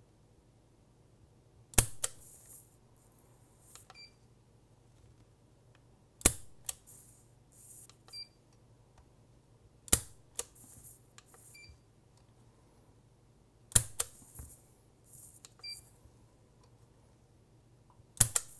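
Smith & Wesson J-frame revolver dry-fired five times, about four seconds apart, as a digital trigger-pull gauge draws the trigger through. Each pull ends in a sharp snap of the hammer falling, followed by softer clicks. A short electronic beep from the gauge sounds between most pulls. The trigger is lightened by an Apex J-frame spring kit and measures just over 8½ pounds.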